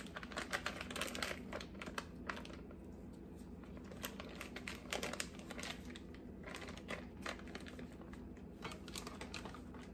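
Faint crinkling of a butter wrapper being peeled off a stick of butter by gloved hands: dense crackling for the first couple of seconds, then scattered crackles.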